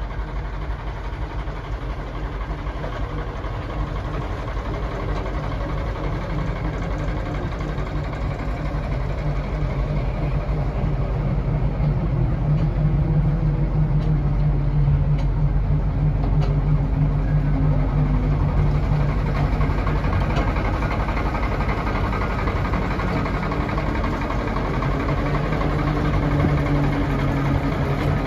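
Small diesel shunting locomotive's engine idling steadily, with a low hum that grows somewhat louder for a while in the middle.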